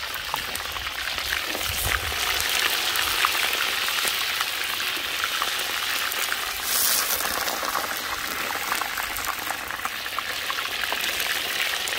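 Hot sunflower oil in a kazan sizzling and spattering as pieces of lamb are dropped in. A louder burst of sizzle comes about seven seconds in.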